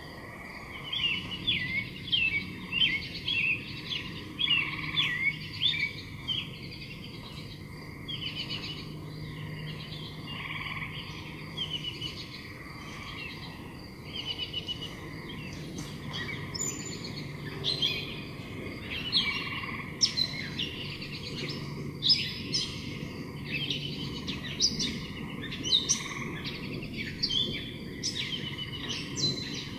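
Small birds chirping and singing: many quick, high, overlapping calls and short trills, with a low steady hum underneath.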